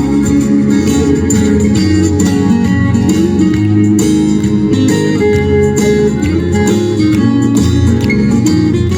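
Instrumental interlude of a live folk song, led by plucked and strummed guitar, between sung verses.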